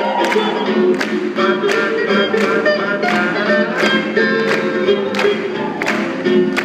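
Swing band playing an up-tempo tune, with a steady beat of about two strokes a second.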